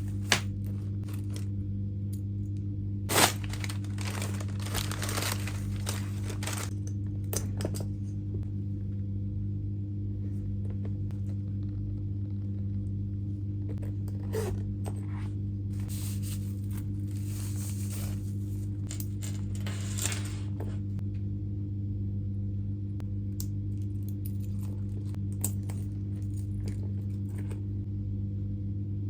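Intermittent tearing and crinkling of paper-like material with a few sharp clicks, the loudest click about three seconds in, over a steady low hum.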